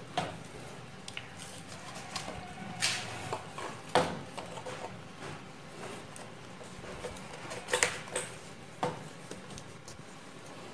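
Light knocks, clicks and rustles of PVC pipe pieces and electrical wire being handled and pushed together, the sharpest knocks about four and eight seconds in.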